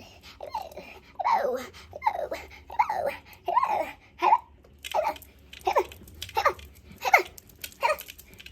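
A person laughing in a long run of short, pitched bursts.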